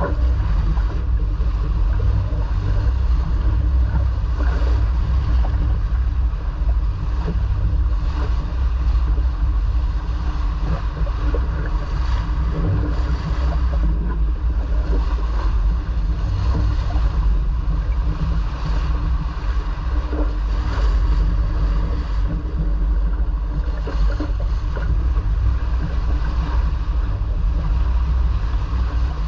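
Sailboat under way: wind buffeting the microphone and water washing along the hull in a steady, loud rush with a constant low rumble, and a faint steady hum underneath.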